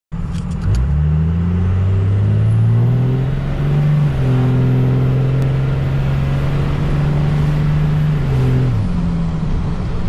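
Dodge Ram's 24-valve 5.9 L Cummins inline-six turbodiesel pulling under load, heard from inside the cab. The engine note climbs over the first few seconds, steps down a little about four seconds in as it shifts, holds steady, then drops away near the end as it comes off the throttle, with a faint high whine running alongside.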